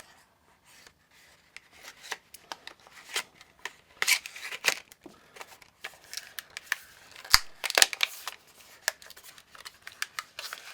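Plastic retail packaging being cut open with a Buck folding knife: irregular snips, scrapes and crackles of stiff plastic, with a few sharp clicks, two of them loudest about two thirds of the way in.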